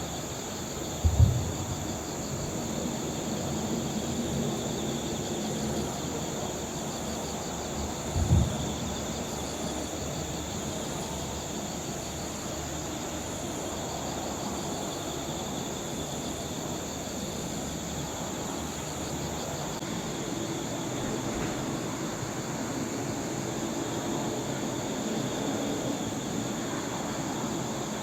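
Crickets chirping steadily in a pulsing high trill over a constant hum of distant traffic. Two short low thumps stand out, one about a second in and another about eight seconds in.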